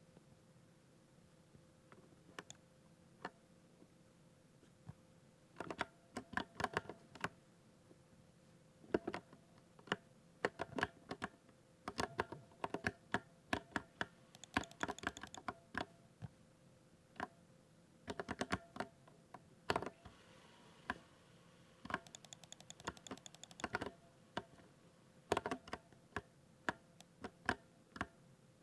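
Typing on a 60% keyboard: keystrokes come in irregular bursts with short pauses, and a quick run of rapid tapping about halfway through and again about three quarters in.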